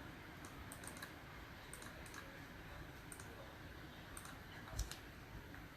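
Faint, scattered clicks of computer input, a mouse and keys being worked, in ones and short clusters, with a slightly stronger click about five seconds in.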